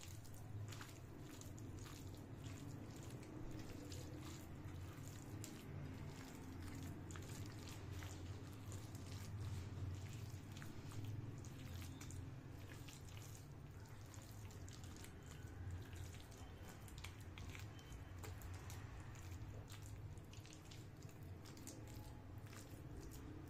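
A hand gently squeezing and mixing wet raw ground-chicken mince in a glass bowl: faint, soft squelching with many small ticks, over a low steady hum.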